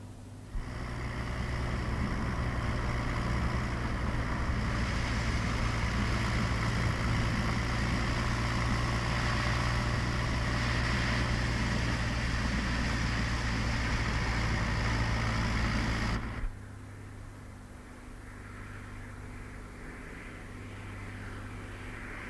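A motor vehicle's engine running steadily. It cuts off abruptly about 16 seconds in, leaving a quieter steady hum.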